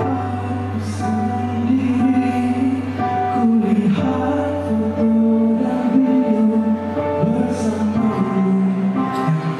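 A man singing into a handheld microphone over sustained accompaniment chords, holding long notes. A low bass note under the chords drops out about eight seconds in.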